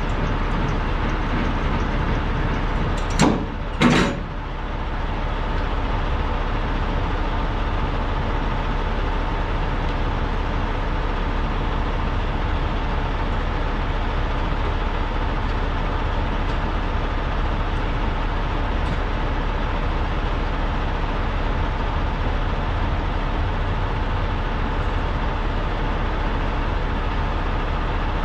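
Steady drone of idling diesel semi-truck engines, with two sharp bangs about three and four seconds in.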